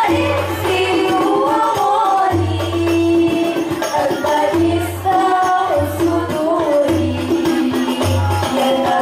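Hadrah music: several girls' voices singing an Islamic devotional song together, accompanied by rebana frame drums beating a steady rhythm with low, booming strokes.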